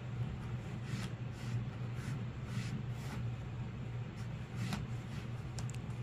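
Indigo-dyed cloth rubbing and rustling softly as it is wound by hand onto a wooden hongdukkae roller, with a few brief brushing sounds over a steady low hum.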